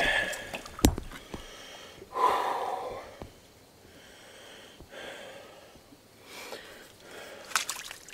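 Paddling a small boat: a sharp knock of the paddle on the hull about a second in and another cluster of knocks near the end, with softer swishes of water in between.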